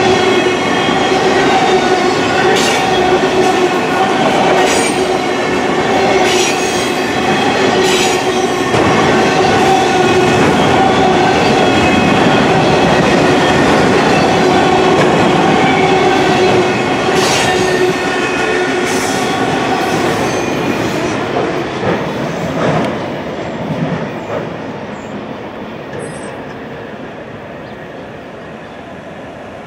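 Freight train of auto rack cars rolling past, wheels rumbling with a few sharp clicks and a steady high-pitched tone over them. The sound dies away over the last several seconds as the final cars pass.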